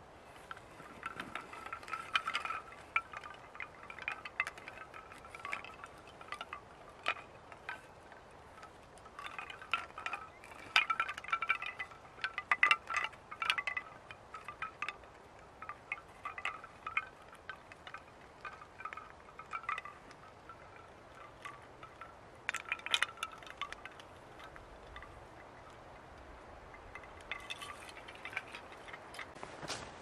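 Homemade bamboo wind chimes knocking together in the wind, each strike with a short ringing tone. The strikes come in irregular flurries, busiest about ten to thirteen seconds in.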